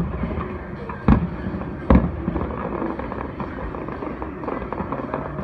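Aerial fireworks bursting: sharp bangs at the start, about a second in and about two seconds in, then a steady background of fainter noise.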